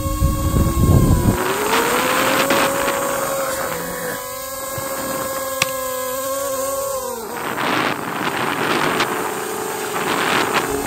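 Multirotor drone's electric motors and propellers whining in flight, the pitch rising about a second and a half in and dropping sharply around seven seconds, then holding steady. Wind buffets the microphone at the start and again in the second half.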